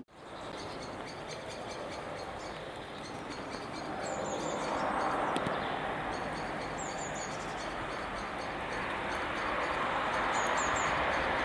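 Electric locomotive hauling a passenger train on the approach, a steady rumble that grows gradually louder as it nears. A bird chirps briefly three times, about 4, 7 and 10 seconds in.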